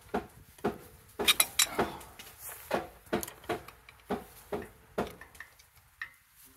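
Irregular sharp metallic clicks and knocks, a few a second, from a ratchet wrench being worked against a seized plug on a Caterpillar 983B track loader.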